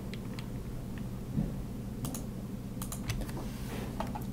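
A few scattered computer keyboard and mouse clicks, with a small cluster about two seconds in, over a low steady hum.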